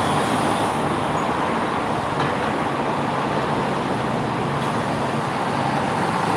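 Steady road traffic noise from cars on a busy street.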